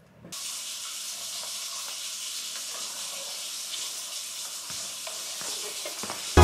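A steady hiss with a few faint clicks, starting suddenly just after a moment of silence.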